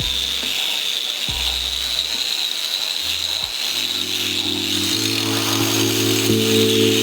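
Lofi hip-hop background music: low bass notes change in steps, and sustained chords fill in about four seconds in, over a steady high hiss.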